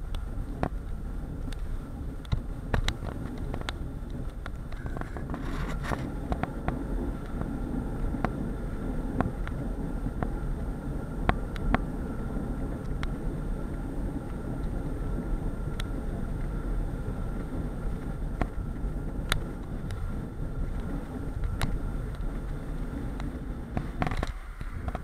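Bicycle rolling along an asphalt street, heard through a bike-mounted action camera: steady road and wind rumble, with frequent short clicks and rattles as it rides over bumps.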